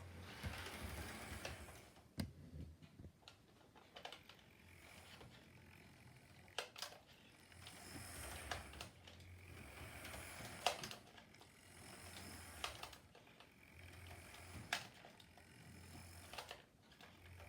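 Hornby OO gauge model of the Flying Scotsman locomotive running on its track. A faint motor whir and wheel rattle swell and fade every few seconds as the engine laps the layout, with sharp clicks at the rail joints. It runs steadily now after its wheels and pickups were cleaned.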